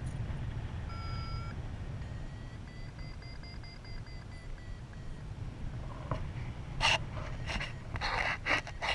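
Paragliding variometer beeping: a short tone about a second in, then a longer tone that rises slightly and falls away, over steady wind rumble on the camera. Near the end come several short, loud bursts of rustling noise.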